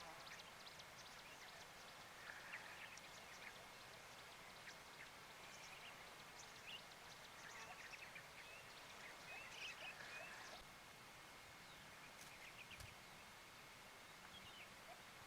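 Quiet outdoor ambience: a faint steady hiss with scattered soft bird chirps, a few more of them in the middle.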